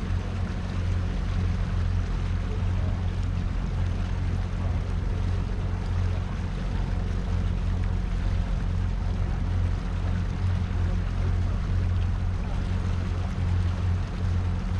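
Fishing boat's engine running steadily, a low, even drone with a constant hiss above it.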